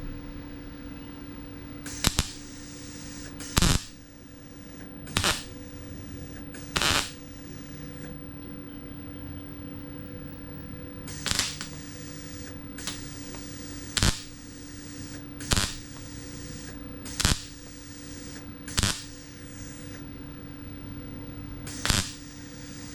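MIG welder laying a run of short tack welds on thin car-body sheet metal, about ten to eleven brief sizzling bursts one to three seconds apart over a steady hum. More tacks are laid than the three planned, and one burns a hole through the thin panel.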